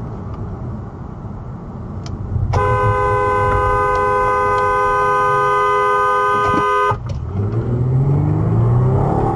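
Car horn held in one long, steady blast of about four seconds, sounded at a car that pulled out and stopped in the lane ahead, over low road rumble as the car brakes.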